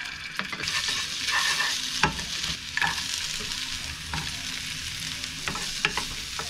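Minced garlic sizzling in oil in a nonstick frying pan as sliced carrot and other vegetable pieces are dropped in and stirred with a wooden spatula. Scattered clicks of the spatula and pieces against the pan punctuate a steady sizzle.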